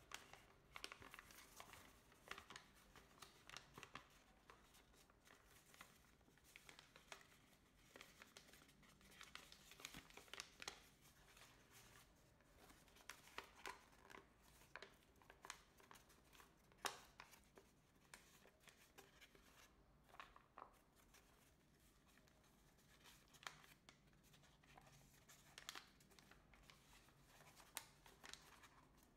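Faint crinkling and rustling of a large sheet of colour paper being folded and shaped by hand into an origami model, with scattered short crackles as the creases are pressed, one louder one a little past halfway.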